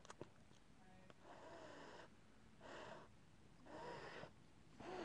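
A domestic cat's faint, breathy huffs, four of them about a second apart.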